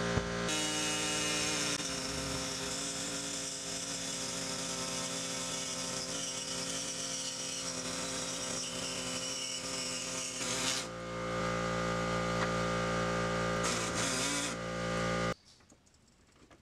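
Power tool cutting through the factory driveshaft center support carrier, its motor running steadily with a brief dip in load about 11 seconds in, then stopping abruptly about 15 seconds in.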